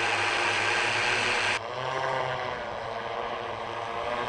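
Eight-rotor electric multicopter (Jetson One prototype) in flight, its brushless motors and propellers running. First comes a loud rushing noise, then an abrupt cut about one and a half seconds in to a quieter buzzing hum made of several steady tones.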